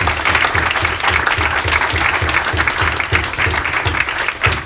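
Audience applauding loudly, with a steady low beat of about three to four thumps a second beneath the clapping.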